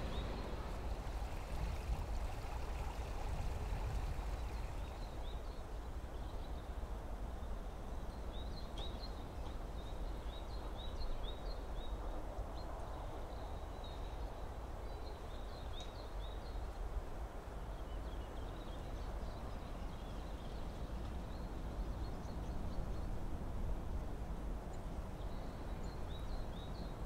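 Outdoor ambience: a steady low rumble and hiss, with small birds chirping in short bursts now and then.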